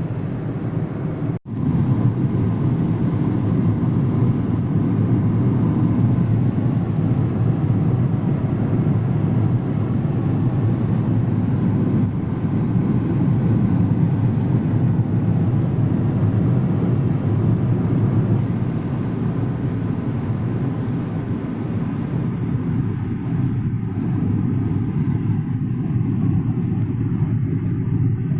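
Steady low rumble of road and engine noise from a car being driven, heard from inside. The sound cuts out for an instant about a second and a half in.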